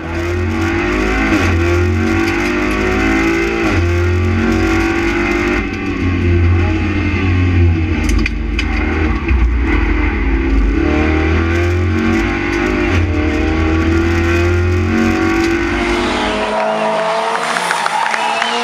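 Rally car engine at high revs, the pitch rising and falling repeatedly through gear changes, over a deep rumble that stops near the end.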